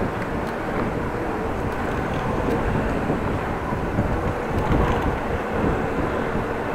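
Steady rumble of wind and road noise on a cycling action camera's microphone, with the low end buffeting irregularly, over the sound of city traffic.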